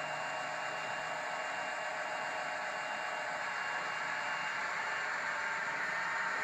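Roco H0-scale ST44 model diesel locomotive running along the track with its train: a steady whirring hiss with a faint high whine, getting a little louder near the end as it comes closer.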